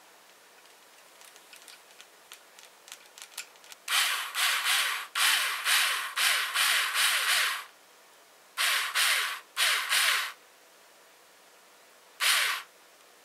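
Small electric screwdriver with a 2.0 mm hex bit running in short bursts, driving the screw that holds the steering link's rod end to a brass steering knuckle. There are a few light clicks first, then two long runs starting about four seconds in, two shorter ones around nine and ten seconds, and a brief last burst near the end.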